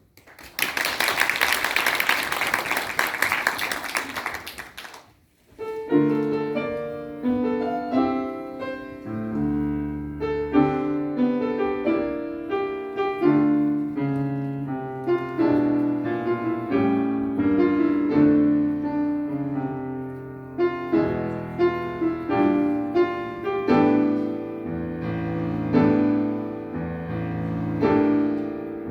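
About four seconds of loud, dense noise with a rapid crackle, which cuts off suddenly. About six seconds in, a piano begins playing chords and a melody, and it keeps playing to the end.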